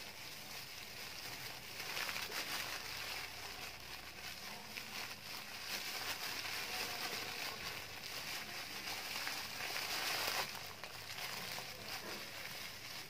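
Thin plastic bag and plastic glove crinkling and rustling as glitter is squeezed out of the bag into toilet-bowl water, a steady crackling rustle.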